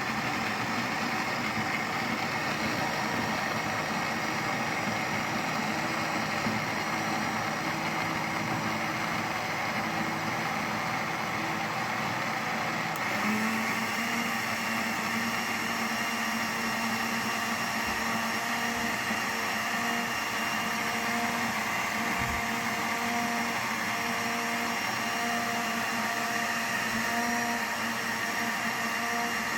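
Electric blender running steadily, blending mango, ginger, yogurt and milk into a smoothie. Its motor tone changes about halfway through and then holds steady.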